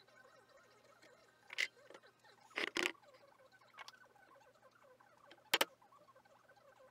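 Handling of carving tools on a wooden workbench: a few sharp knocks and clicks as tools are put down and picked up, then a quick double tap about five and a half seconds in as a hammer meets a chisel on the wood.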